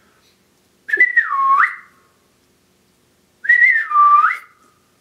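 A person whistling twice to call a dog. Each whistle lasts about a second, dips in pitch and slides back up, and the two are about two and a half seconds apart.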